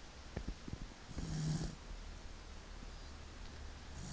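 A sleeping dog snoring: one snore with a low hum and breathy hiss about a second in, and the next starting near the end.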